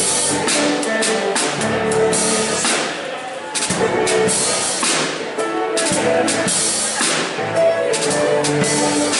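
Live band playing: a drum kit keeps a steady beat with cymbal hits under held chords.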